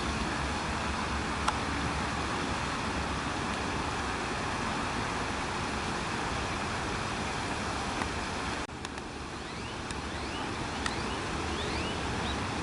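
Steady rushing outdoor noise with a sudden brief dip about two-thirds of the way through, followed by a run of short, high, rising bird chirps.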